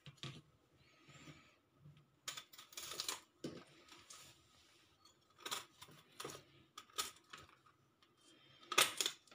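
Knife cutting through a ridge gourd: irregular, crisp cuts and light taps, the strongest near the end.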